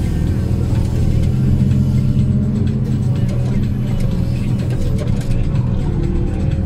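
HSM forestry skidder's diesel engine running steadily, heard from inside the cab, with a faint steady whine above the low engine drone.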